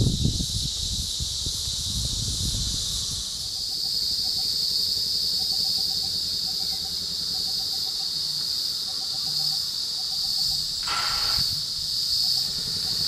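Insect chorus, a steady high-pitched buzz that gets louder about three seconds in, over a low rumble that fades in the first few seconds. Short runs of quick chirps repeat about every second, and a brief louder sound cuts in near the end.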